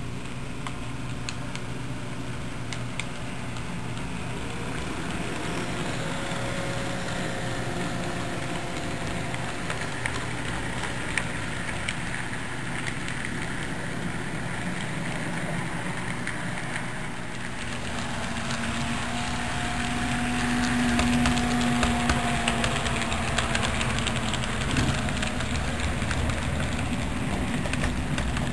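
HO scale model train running past on the layout: a steady mechanical hum with a faint wavering whine and scattered clicks, growing louder about two-thirds of the way through as the train comes nearer.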